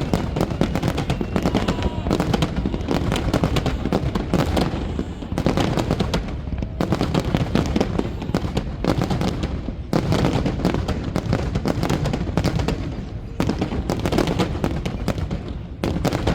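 Fireworks display: a dense, continuous barrage of bangs and crackling, with short lulls about five, ten and thirteen seconds in.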